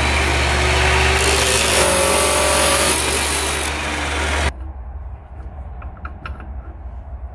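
Abrasive chop saw cutting through a steel round bar: a loud, steady grinding hiss for about four and a half seconds. It then stops abruptly, leaving a low steady hum and a few light clicks.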